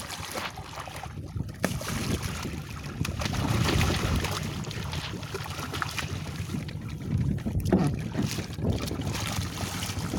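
Wind buffeting the microphone over sea water splashing against a fishing boat's hull as a hooked tuna thrashes alongside, with a low rumble and a few short knocks.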